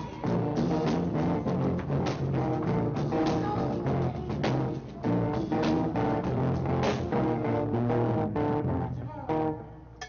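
A soul-pop band playing live, with a drum kit beating regular hits under bass and electric guitar. The music breaks off just before the end.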